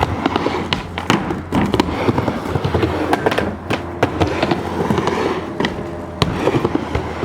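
Food crackling and popping in a hot frying pan, a dense run of irregular pops and snaps over a steady sizzle.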